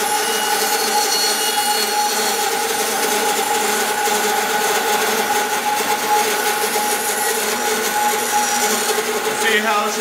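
Band saw running and resawing a cedar log lengthwise, the log fed steadily through the blade on a sled. A steady hum with the hiss of the blade cutting the wood.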